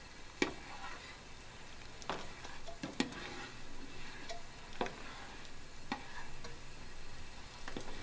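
A plastic slotted spoon stirring spaghetti in a saucepan of hot water, knocking against the pot about seven times at uneven intervals, over a low steady hiss from the water.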